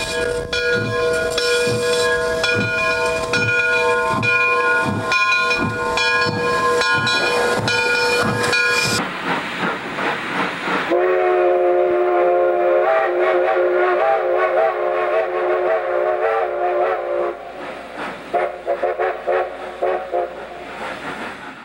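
Steam locomotive sounds: a steady chime whistle over an even beat of exhaust chuffs, then about two seconds of steam hissing. Then a second chime whistle comes in, rising and then held with a wavering pitch, and ends in a few shorter blasts.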